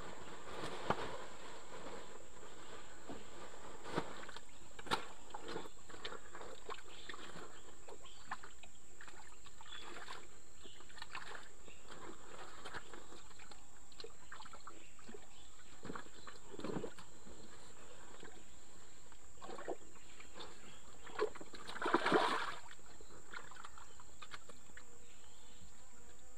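Scattered wet splashes and squelches of mud and water in a drained ditch, with a louder cluster of splashing about 22 seconds in, over a steady high hiss.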